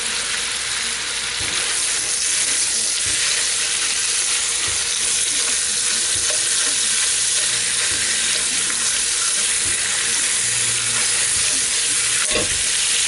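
Ground beef and pork sizzling steadily in a hot cast iron pan with bacon and onions, with light scraping and tapping of a fork as the meat is broken up. A louder knock comes near the end.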